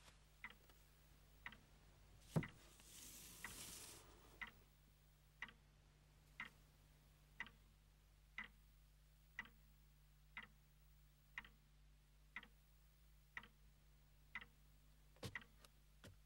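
Faint clock ticking steadily, about once a second. About two seconds in there is one sharper knock, followed by a brief rustle lasting about a second and a half.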